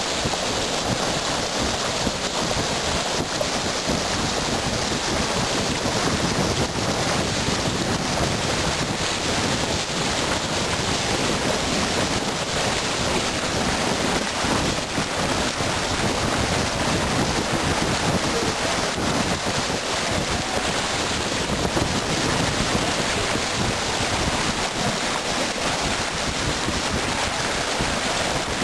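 Water rushing and splashing as a moving boat's bow cuts through it, with wind noise on the microphone; an even, steady sound with no distinct events.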